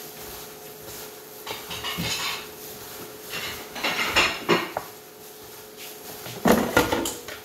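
Plastic-gloved hands mixing a dry rub of salt, pepper and brown sugar in a ceramic bowl: glove rustling and scraping against the bowl in three spells, the loudest near the end.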